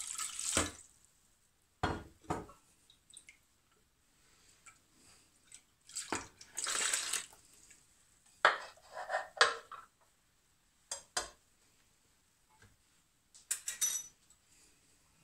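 Kitchen dishware being handled: scattered knocks and clinks of a bowl, a food-processor jug and utensils, some of them ringing briefly. A short rush of running water stops within the first second, and there is a longer splash of liquid about six seconds in.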